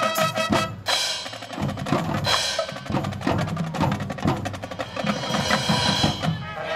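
Marching band percussion feature: drums and front-ensemble mallet percussion playing quick, dense strikes after the brass cuts off about a second in. Held brass tones come back in near the end.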